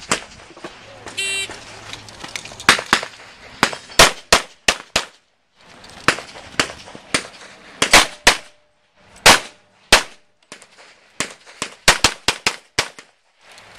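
A shot timer's start beep, then a handgun fired in rapid pairs and short strings of shots during a practical pistol stage, with brief pauses between groups as the shooter moves to new positions.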